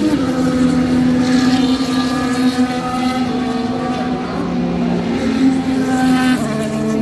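Formula 1 cars' turbocharged V6 engines running loud, several engine notes overlapping and held steady, shifting pitch a few times.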